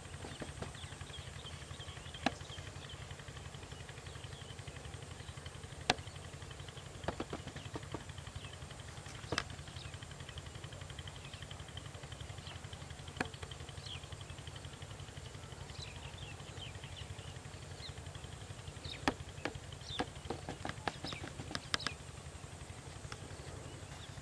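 Rural outdoor ambience: a steady low rumble, faint bird chirps that grow busier in the second half, and scattered sharp clicks and ticks that cluster near the end.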